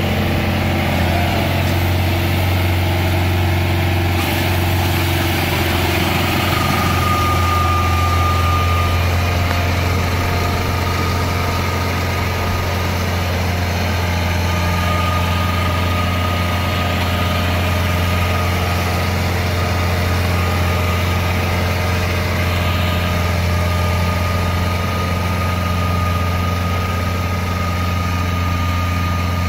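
Farm tractor's diesel engine running steadily as it pulls a rotating disc bund former through a flooded rice paddy, with a faint high whine that comes and goes.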